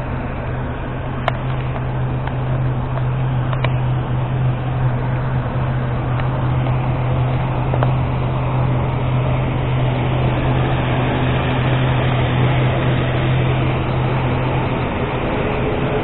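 Steady drone of aircraft and ground machinery on an airport apron: a constant low hum under a wide rush of noise. Two or three sharp clicks in the first few seconds from the camera being handled.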